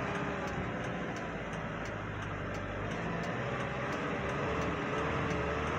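Hyundai Porter II light truck's engine, heard from inside the cab, pulling slowly in first gear with its note wavering up and down as the revs vary. The irregular revs are the sign of the truck's bucking fault at low throttle, which scanning has not explained.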